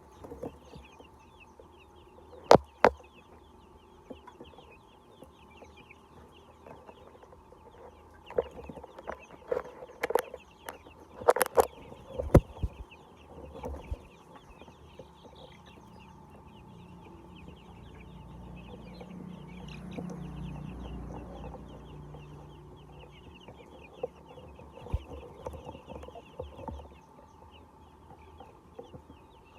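A flock of chickens clucking over a constant chatter of short high-pitched calls. Several sharp knocks stand out in the first half, and a low rumble swells and fades about midway.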